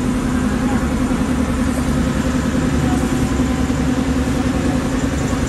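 Honda Click 160 scooter engine running steadily, spinning the rear wheel on its stand with the newly fitted rear disc brake.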